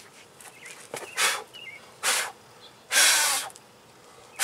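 Several short hissing bursts about a second apart, the longest and loudest about three seconds in, while a small bird chirps faintly in the background.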